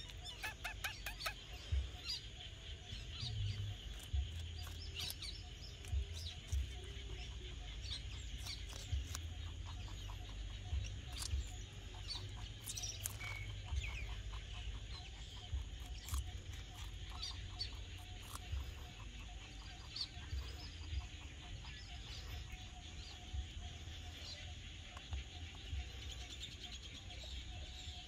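A rabbit biting and chewing a raw cucumber: a string of crisp crunching clicks over a low rumble, with a few short high animal calls in the background.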